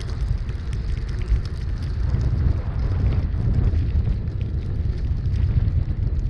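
Car driving: a low, uneven rumble of road and wind noise, with scattered light ticks.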